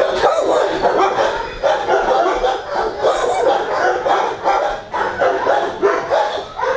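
Many kennelled dogs barking at once, their barks overlapping in a continuous din.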